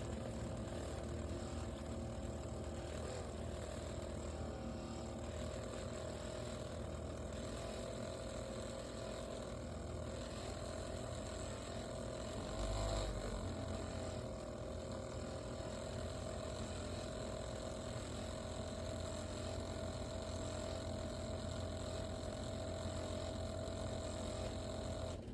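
Ninja Pods & Grounds single-serve coffee maker running while it brews: a steady mechanical pump hum with a held tone, and a brief louder low bump about halfway through.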